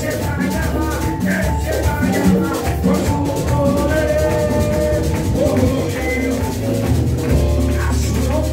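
Live Spanish-language Pentecostal revival chorus: two men singing into microphones through a PA, over a quick steady shaker rhythm and drums.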